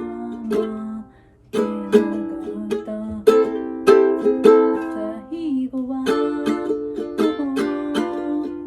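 Ukulele strummed in chords, with a brief break a little after a second in before the strumming picks up again.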